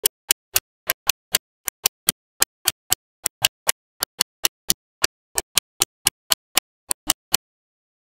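Small magnetic balls clicking as they snap onto one another one at a time: a quick, even run of sharp clicks, about four a second, that stops shortly before the end.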